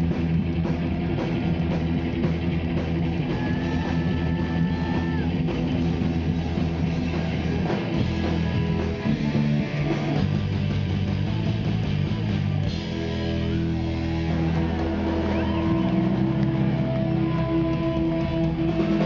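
Rock band playing live: distorted electric guitar, bass guitar and drums, loud. From about two-thirds of the way through, the guitars hold long ringing notes.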